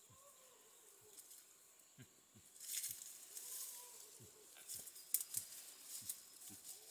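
Rustling of ferns and undergrowth as someone pushes and steps through them, loudest in short bursts near the middle and toward the end. Faint repeated low calls, about two a second, and a faint wavering call run underneath.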